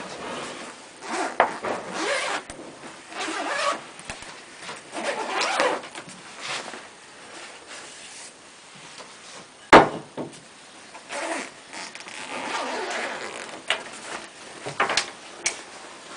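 A zipper on a padded fabric backpack being pulled open in a series of long rasping strokes, with fabric rustling as the bag is handled. A single sharp knock, the loudest sound, comes about two-thirds of the way through.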